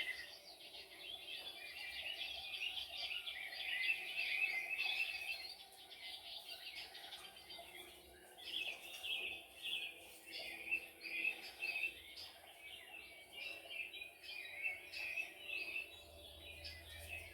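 Several birds chirping and singing: quick series of short, high notes that come in clusters, over a faint steady background hiss.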